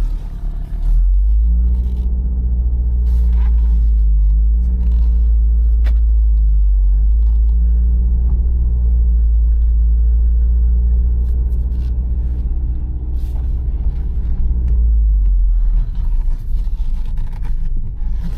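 A 2012 Ford Focus being driven, heard from inside the cabin: a loud, steady low rumble of engine and road noise. The car has a freshly replaced dual clutch. The low drone eases off about fifteen seconds in.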